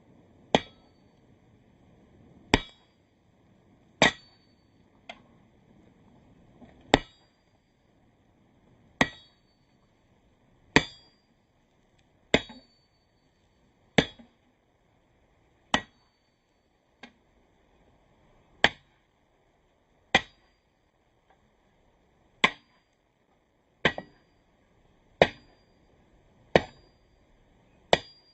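Heavy sledge hammer blows on hot steel over an anvil, forging out a knife tang. It is a slow, even series of single strikes about every one and a half to two seconds, each with a brief metallic ring, plus a couple of lighter taps.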